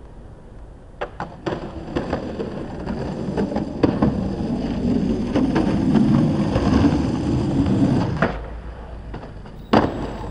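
Skateboard wheels rolling on pavement: a rumble that builds and cuts off about eight seconds in, with scattered clacks of the board, then one sharp clack near the end.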